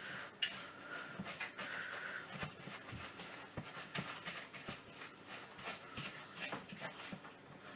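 Hand whisk scraping and clicking against a bowl as it beats egg yolks into sugar. The mixture is thick and crumbly, and the sound is a quiet, irregular run of soft scrapes and taps.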